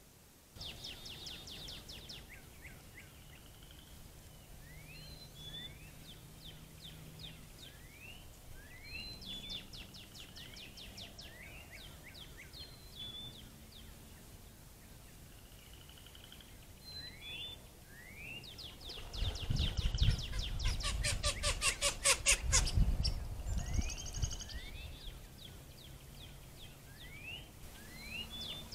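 Outdoor animal calls: repeated short rising calls and high quick trills, with a louder stretch of rapid pulsing several seconds long about two-thirds of the way through.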